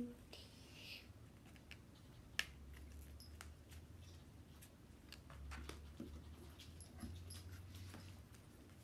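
Faint scattered clicks and rustles of a rubber band being stretched and snapped around a small cardboard box of playing cards.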